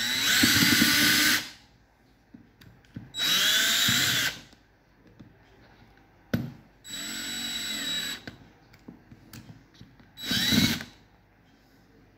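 Milwaukee M18BPD 18-volt brushed cordless drill test-run after a new armature and brushes were fitted: four short trigger pulls, each spinning the motor up with a rising whine, running about a second and winding down. A sharp click comes just before the third run.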